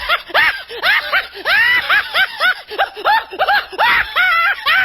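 A person laughing "ha-ha-ha" in a long unbroken run of quick, high-pitched syllables, about three a second, each rising and falling in pitch.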